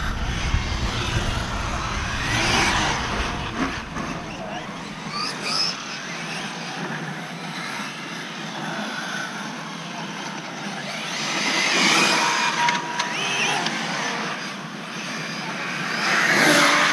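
Team Associated SR7 1/7-scale electric RC car running laps on asphalt, its motor and tyre noise swelling as it passes close about two seconds in, again about twelve seconds in and near the end.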